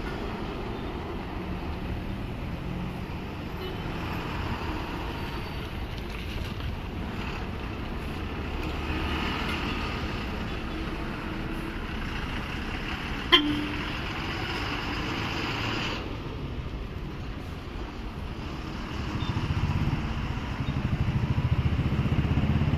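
Bus-stand road traffic: bus and vehicle engines running, with horns tooting. A single sharp knock sounds about halfway through, and a heavier engine rumble grows louder near the end as a vehicle moves close by.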